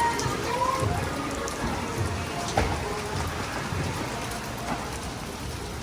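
Rain falling steadily, with one sharp tap about two and a half seconds in.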